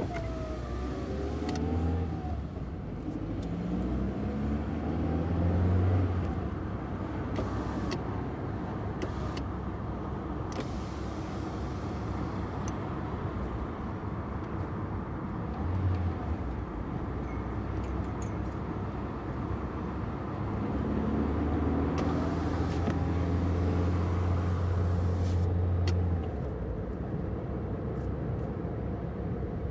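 Car engine running and revving up several times: rising runs in the first few seconds, a short blip about halfway through, and a longer rev held for several seconds near the end before it drops back.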